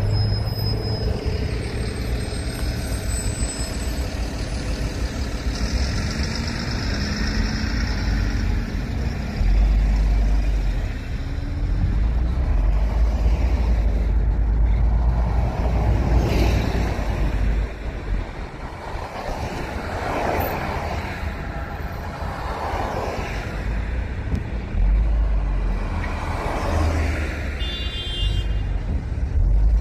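Road traffic: a steady low rumble of vehicle engines and tyres, with several vehicles passing one after another in the second half, each swelling and fading over a second or two.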